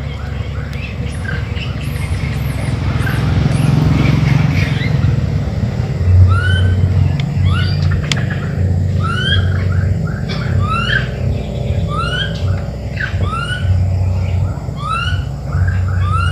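Birds chirping, many short rising calls repeated every half second or so, over a loud low rumble that pulses unevenly.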